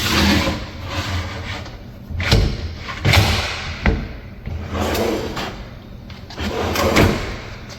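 A cabinet drawer being worked in and out on its drawer slides, with sliding runs and several knocks and thumps as it is pushed shut, while its misaligned slides are adjusted.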